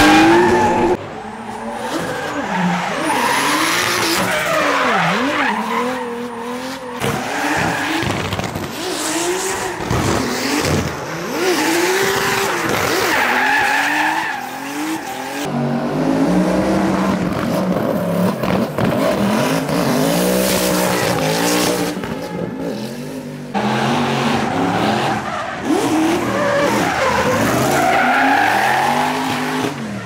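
Drift cars sliding at full throttle, their engines revving up and down in pitch over the hiss and squeal of spinning tyres. The sound changes abruptly several times as one car's run gives way to another's.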